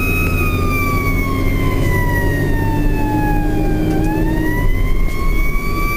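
Fire engine siren wailing, its pitch sliding slowly down for about four seconds and then climbing back up, over the steady drone of the truck's engine.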